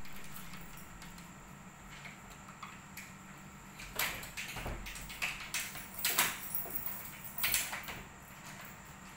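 A wooden front door being pulled shut and locked. There is a string of sharp clicks, knocks and rattles from the latch and lock, starting about four seconds in.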